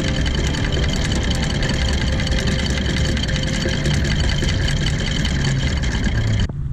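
A boat engine running steadily: a deep rumble with steady high whining tones over it, cutting off abruptly near the end.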